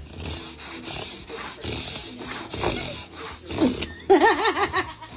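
Bulldog making short, excited breathy noises, then a brief wavering whine about four seconds in: worked up at being invited into its owners' bed.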